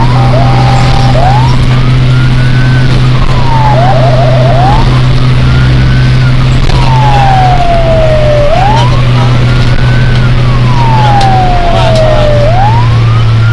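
Emergency vehicle's electronic siren wailing, its pitch rising and falling slowly over a few seconds at a time. A stepped tone opens the sound, and a short fast yelp comes about four seconds in. A steady engine and road drone runs under it, heard from inside the cab.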